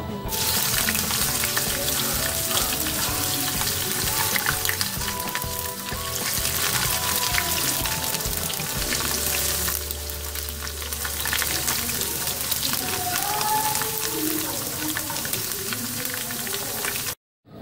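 Thin potato slices frying in hot oil in a pan, a dense sizzling and crackling that starts as the slices go in. It cuts out abruptly just before the end.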